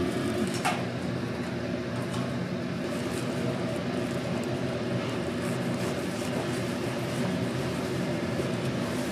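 A steady machine hum made of several low, even tones. About a second in, a chef's knife gives one sharp knock on a plastic cutting board as it cuts through a burrito.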